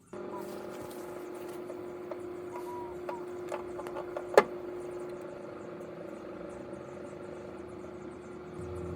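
Microwave oven switching on and running with a steady electrical hum. Several sharp snaps sound over it, the loudest about four and a half seconds in.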